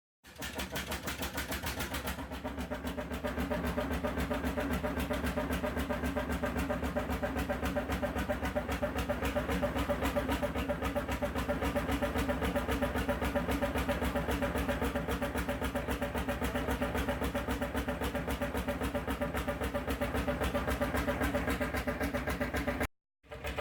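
An engine idling with a steady, even beat. It cuts out briefly near the end and then starts again.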